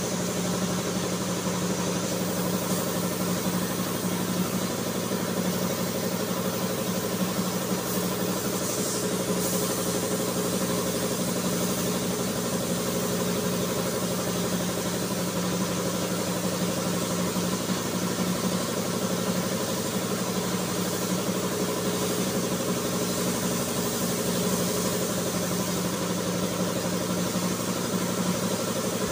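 A motor running steadily: a constant low hum with a fixed pitch and a hiss above it, unchanging throughout.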